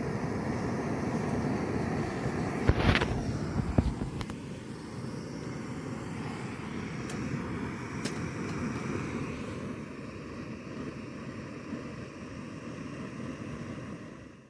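Gas canister camp stove burner running with a steady hiss under a kettle being heated, with a few sharp knocks about three to four seconds in.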